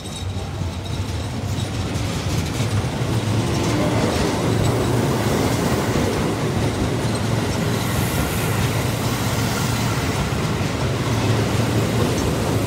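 Keio Line electric train passing close by at low speed: a steady rumble of wheels on the rails that builds over the first two seconds and then holds. It is a limited express slowed to a crawl because it has caught up with the train ahead.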